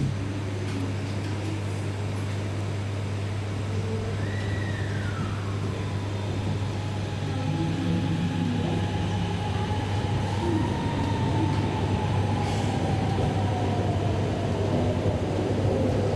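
Hanoi Metro Line 2A train pulling out of an elevated station, heard from inside the car. The electric drive's whine drops in pitch about four seconds in and then holds. Running noise grows over a steady low hum.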